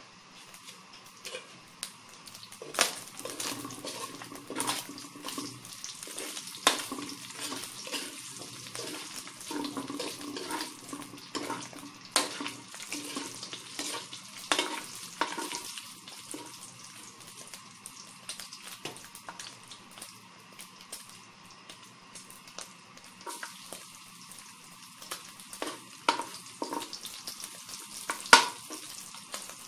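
Pork pieces sizzling in hot oil in a metal wok, with a metal spatula scraping and clinking against the pan at irregular moments as they are stirred.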